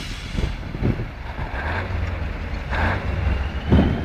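Heavy truck engine running with a steady low rumble and a few short louder surges, plus a faint whine in the second half.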